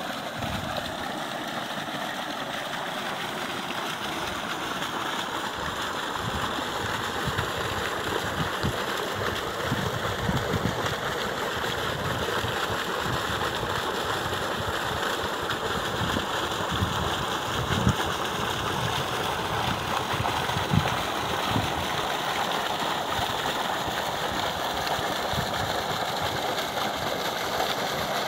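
Water gushing steadily from a borewell pump's outlet pipe into an irrigation channel, a constant rushing noise, with irregular low thumps from about six seconds in.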